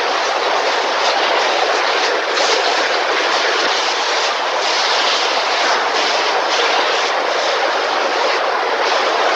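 Steady, loud hissing and rumbling factory noise from a car-body paint shop, with brief brighter surges of hiss now and then.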